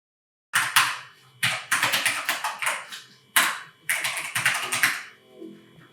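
Typing on a Keychron K8 mechanical keyboard: fast runs of key clicks in four bursts with short pauses between them.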